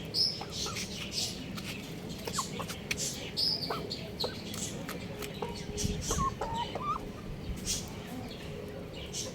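Young rooster chirping and clucking in many short, separate high calls, with a few lower calls bunched together past the middle.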